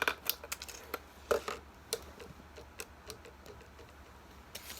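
Scissors cutting into a thin plastic water bottle: irregular sharp snips and crackles of the plastic, a quick cluster of them about a second and a half in.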